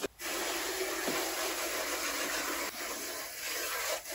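Garden hose spraying water onto the underside of a car bonnet to rinse off degreaser: a steady hiss of water spray that starts suddenly.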